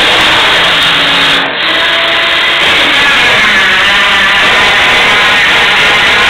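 ATV engine running steadily and loud, with a brief dip in the sound about a second and a half in.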